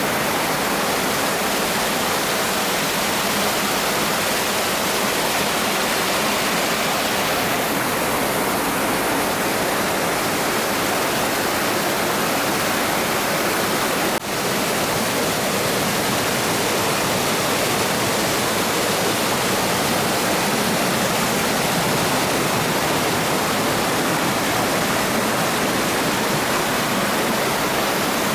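Steady rush of water from a small waterfall in a mountain stream, even and unbroken apart from a momentary drop about halfway through.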